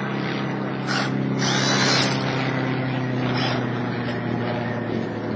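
Small single-engine propeller plane flying overhead, its engine droning steadily, with a louder rush of noise about a second and a half in.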